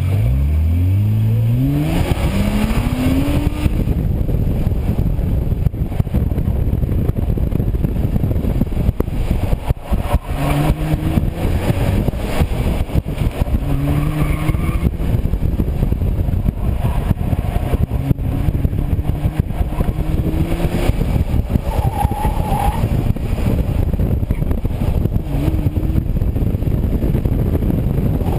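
Car launching hard from a standing start, its engine revving up steeply in the first few seconds, then running an autocross course with short bursts of rising revs between corners. Loud wind buffeting and rushing noise sits over the engine throughout, from a microphone mounted on the outside of the car's flank.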